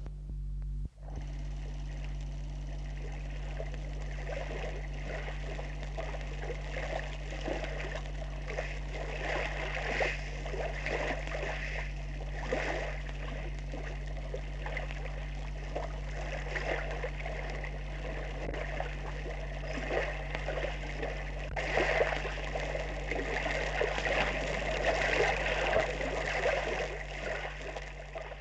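Water sound, splashing and gurgling like surf or running water, starting about a second in and swelling at times. A steady low hum runs underneath.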